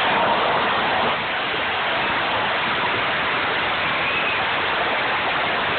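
Football stadium crowd: a steady, dense wash of many voices at once.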